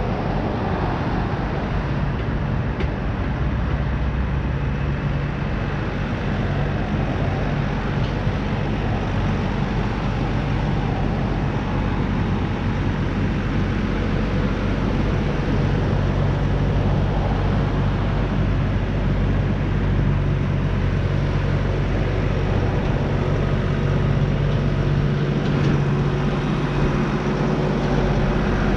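A diesel engine running steadily close by: a low, even drone that grows slightly louder in the second half.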